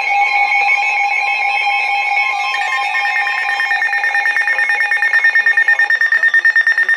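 Emergency alert tones announcing a flash flood warning, overlapping: a steady lower tone with a higher one above it that stops about six seconds in, joined about two and a half seconds in by a higher, rapidly pulsing beep.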